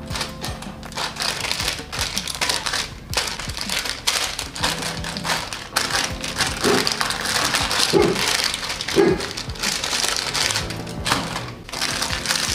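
Laminated seasoning-mix sachets crinkling and rustling as hands sort them and drop them into a plastic basket, with soft background music underneath.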